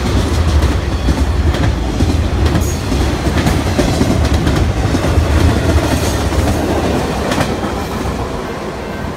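BNSF intermodal freight train of trailer-carrying flatcars passing close by: a loud rolling rumble with the clickety-clack of wheels over rail joints, easing off near the end.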